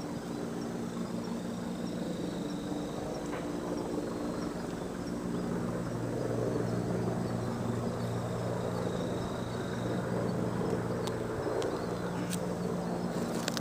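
A steady engine hum, drifting slightly in pitch, with a faint high insect trill that comes and goes. A few light clicks near the end.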